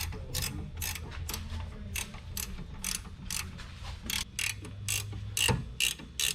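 Hand ratchet wrench clicking at an even pace, about two and a half clicks a second, as a 19 mm caliper bracket bolt is run in.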